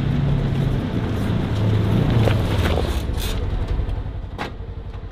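Side-by-side UTV engine running as the vehicle drives over rough graded dirt, coming close and passing by; its pitch drops about two seconds in and the sound fades toward the end, with a few light knocks.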